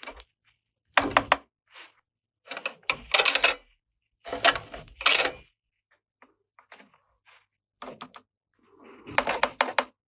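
Hard plastic toy pieces being handled, clicking and clattering in short irregular bursts with brief pauses between them.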